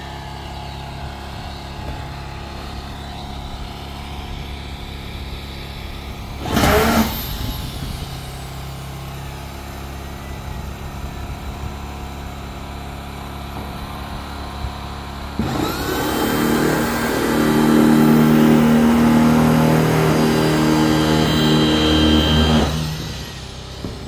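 A motor running steadily with a low hum. About six and a half seconds in there is a short loud burst, and from about fifteen to twenty-three seconds it grows louder and higher-pitched before dropping back.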